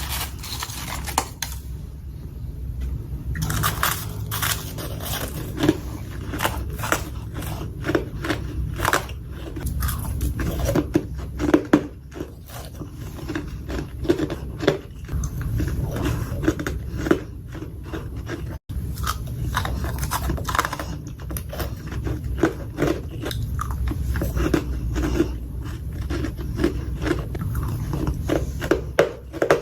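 Close-miked biting and chewing of freezer frost: a continuous run of crisp crunches, several a second, over a low steady hum, with an instant's dropout about two-thirds through.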